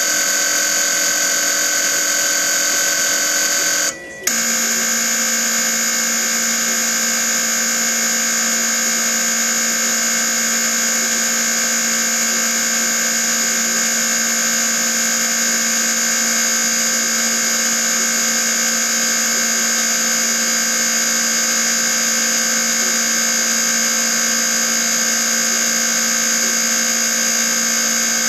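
Siemens piezo direct-injection petrol injectors firing on an ASNU injector test bench: a steady, high-pitched electric buzz made of several tones. It cuts out briefly about four seconds in and comes back with a lower tone added.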